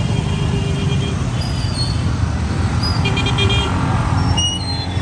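Many motorcycle engines running together as a procession of motorbikes rides slowly past, with horns tooting briefly, most clearly about three seconds in.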